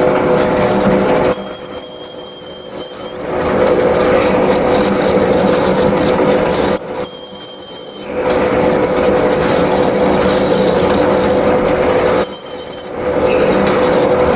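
Lathe running with a steady hum while the cutting tool deepens a pulley's groove. Three times, a high-pitched squeal rises from the cut and lasts a second or two.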